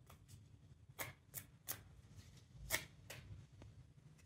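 A deck of oracle cards being shuffled by hand overhand, cards sliding against each other with about six sharp little card clicks as packets drop onto the deck.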